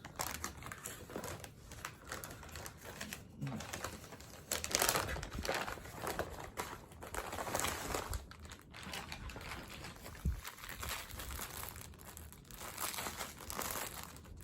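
Packaging being handled and opened to unbox a plush toy: irregular crinkling and rustling, busiest from about four seconds in.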